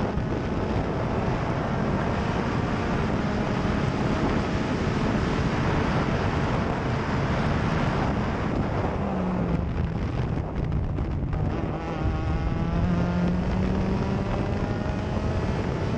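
Onboard sound of a USF2000 open-wheel race car's four-cylinder engine at racing revs, with wind buffeting the cockpit. The engine note climbs under power, drops and briefly breaks up around ten seconds in as the car slows and shifts down for a corner, then climbs again as it accelerates away.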